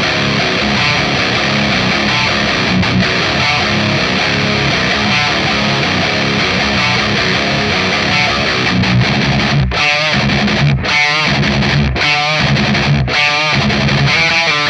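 Heavily distorted electric guitar played through the Overloud TH-U 'Kally' high-gain amp-sim rig, with a simulated British 4x12 cabinet loaded with Vintage 30 speakers, playing a dense, low, sustained riff. From about ten seconds in, the riff breaks into short choppy stops about once a second, with wavering vibrato notes ringing between the cuts.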